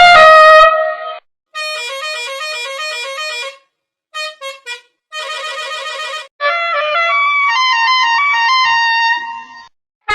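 A musical bus horn playing a short melody over and over in different versions, each clip cut off by a short gap, with three quick toots about four seconds in.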